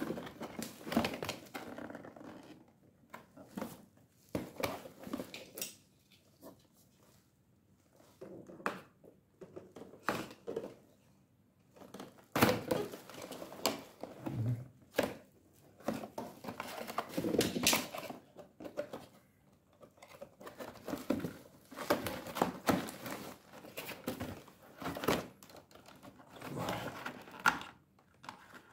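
Cardboard toy box and plastic packaging being handled and opened by hand: irregular crinkling, rustling and tearing with light knocks, coming in bunches with short pauses between.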